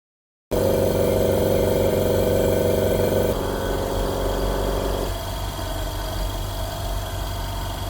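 Tiger 3 HP oil-free silent air compressor running: a steady motor-and-pump hum that starts abruptly about half a second in, then its higher hum drops a step about three seconds in and fades away about five seconds in, leaving a lower, quieter steady hum.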